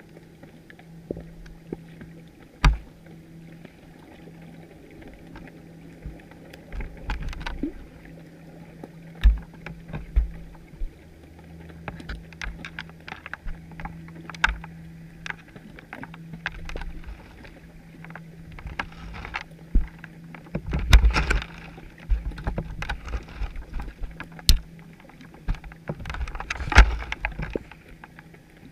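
Underwater sound through a GoPro housing fixed to a chum pot: scattered sharp clicks and knocks, and heavier muffled thumps in two clusters in the second half, over a steady low hum.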